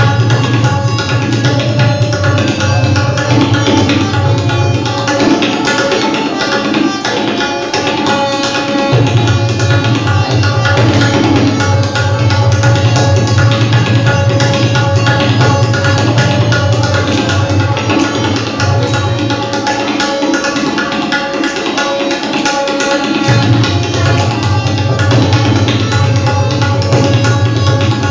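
Tabla solo: fast, dense strokes on the tabla over a harmonium playing a repeating lehra melody of held reedy notes. The deep bass of the bayan, the left-hand drum, drops out twice for a few seconds at a time.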